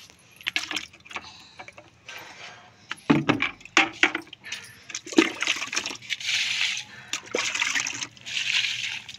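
Water being poured onto potted plants and splashing on the concrete floor, in two longer gushes in the second half. A few knocks and clatters come about three seconds in.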